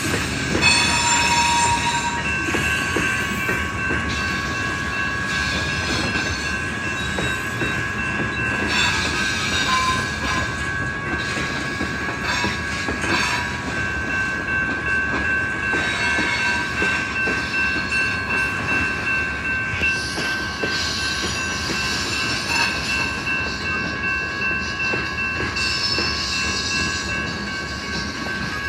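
Freight train cars rolling past at a grade crossing: a steady rumble and clatter of steel wheels on the rails, with a continuous high-pitched wheel squeal over it.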